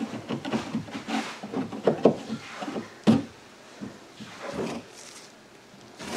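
Metal scraper scraping soaked wallpaper backing off drywall in short, quick strokes, with one sharp knock about three seconds in. After that come softer rubbing sounds as a gloved hand wipes the wet wall.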